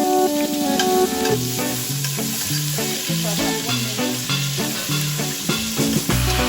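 Background music with a steady bass line, laid over onions sizzling in hot olive oil in a pot.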